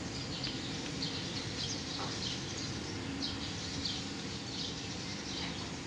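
Small birds chirping in short, quick calls over a steady low mechanical hum.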